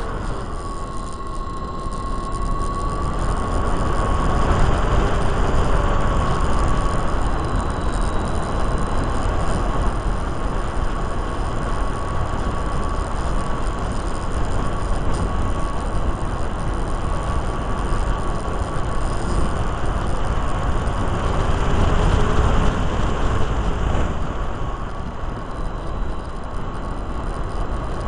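Electric motor and propeller of a Micro Interceptor RC plane whining at a steady pitch, under loud wind rushing over the onboard camera's microphone.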